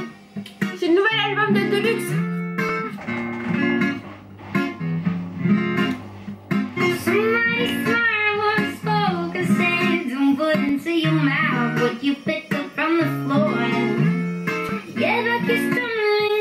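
A song playing: guitar chords strummed in a steady rhythm with a voice singing over them.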